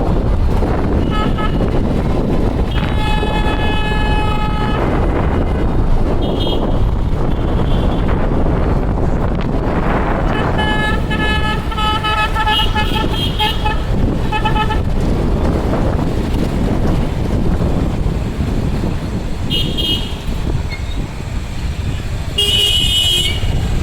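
Busy city road traffic with vehicle horns honking over and over: a long horn blast about three seconds in, a run of honks from about ten to fifteen seconds, and short toots near the end, all over a steady rumble of traffic.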